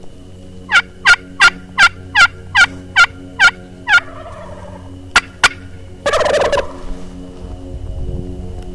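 A quick run of about nine sharp turkey yelps, then two more. About six seconds in, a wild turkey gobbler gives one rattling gobble.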